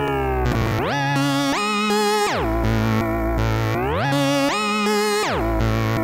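Wavefonix 1847 wavetable synthesizer oscillator playing a repeating pattern of notes with glides: the pitch slides up, steps higher, slides back down and holds low, the cycle repeating about every three seconds.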